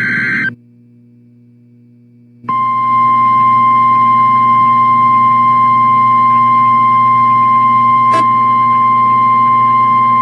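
The tail of an Emergency Alert System SAME data burst, a short shrill digital warble, cuts off about half a second in, leaving a low steady hum. About two and a half seconds in, the single steady 1050 Hz weather-radio alert tone starts and holds, with a brief click about eight seconds in.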